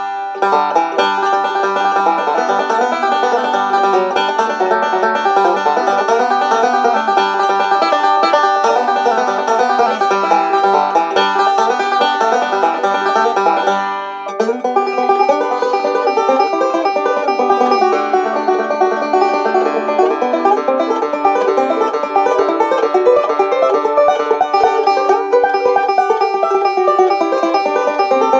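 Gold Tone OB-3 five-string resonator banjo in a traditional bluegrass setup, picked continuously in bluegrass style, with a brief let-up about halfway through. Its tone is direct, clean and clear, with front edge and brightness but still some growl and depth.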